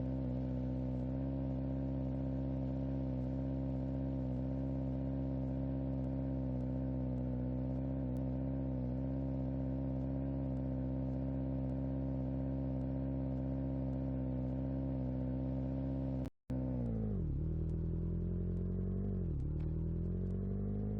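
A low, steady buzzing drone, then a cut about sixteen seconds in, after which the buzz returns and swoops down and back up in pitch a few times.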